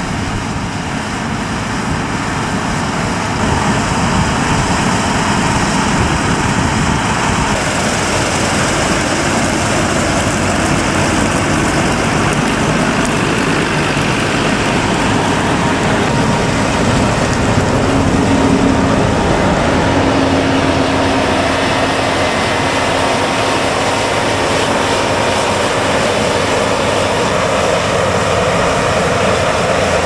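New Holland CR8.80 combine harvester and a Fendt Vario tractor with its grain wagon running together while harvesting: a loud, steady machine drone. A steady hum joins in for a few seconds past the middle.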